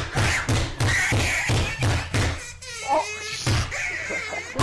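A man bawling and wailing in exaggerated crying, with a quick series of low thumps about three a second through the first two seconds and a wavering high wail near the middle.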